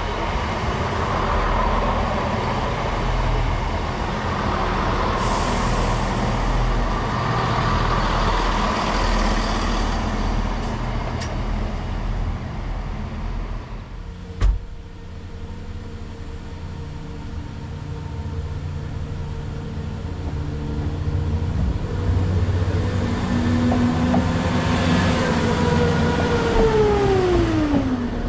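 Class 170 Turbostar diesel multiple unit running through a station, a loud steady rumble of engine and wheels. A sharp click about halfway through, then a second diesel train passing a level crossing with a steady tone that slides down in pitch near the end.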